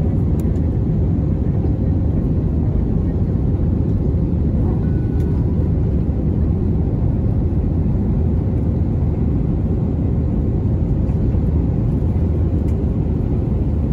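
Airbus A320 jet engines at takeoff thrust, heard from inside the cabin over the wing: a loud, steady, deep rumble through the end of the takeoff run, liftoff and initial climb.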